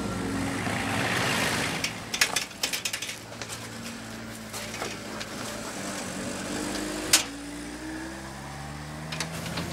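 Footsteps crunching on track ballast, then a sharp click like a door latch, over a low hum that rises in pitch near the end.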